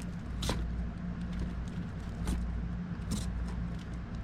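Short crackles of a bagged comic book being handled, three or four brief ones, over a steady low background hum.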